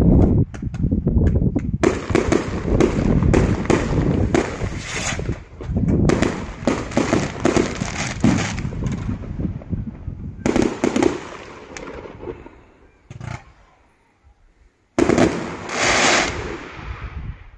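Aerial fireworks going off: rapid volleys of bangs and crackling bursts, thinning out to a brief lull about three-quarters of the way through, then a loud new volley near the end.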